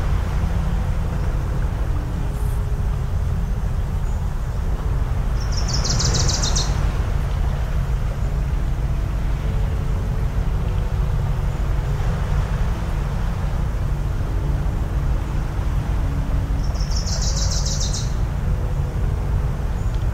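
Coastal ambience: a steady low rumble of waves with a faint distant motor hum, and a bird's short rattling call twice, about six and seventeen seconds in.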